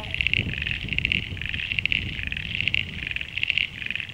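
Chorus of pond frogs: many high, rapidly pulsed calls overlapping in repeating bursts, about two to three a second, over a low rumble.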